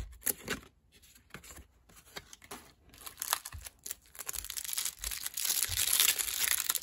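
The plastic wrapper of a trading-card pack, here a 1993 Diamond Marks bookmarker pack, being torn open and crinkled by hand. A few light handling clicks come first, and the crackling tearing starts about three seconds in and grows louder toward the end.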